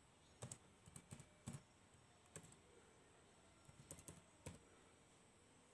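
Laptop keyboard keys being typed, about ten faint, separate key clicks in small groups with near silence between them.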